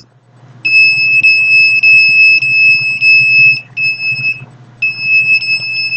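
A handheld microwave detector sounding a steady high-pitched electronic alarm tone with faint regular ticks. It starts just after the beginning, cuts out briefly twice, and resumes each time, the detector registering a signal.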